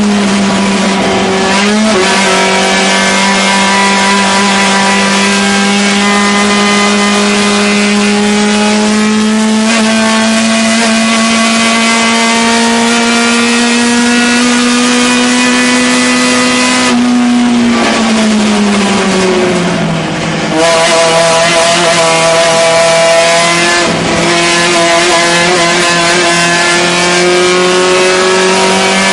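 Fiat 128 race car's 1100 cc four-cylinder engine, heard from inside the cockpit, running hard at high revs. Its pitch climbs slowly for most of the time, drops away for a few seconds about two-thirds through, then climbs again, with a brief break in the note near the end.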